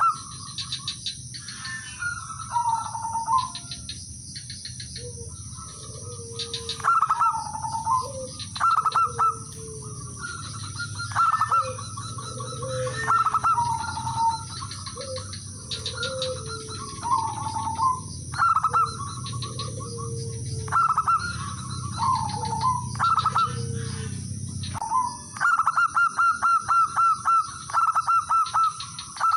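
Male zebra dove (perkutut) singing: repeated phrases of quick staccato cooing notes, each ending in a falling coo, about every two seconds. Near the end comes a faster, evenly spaced run of notes.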